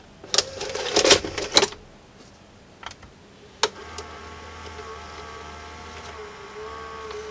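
Sharp VC381 VCR taking in a cassette: a quick run of clicks and plastic clatter as the cassette goes into the carriage, then a single click about three and a half seconds in. Right after the click, the small loading motor and mechanism whir steadily for about four seconds.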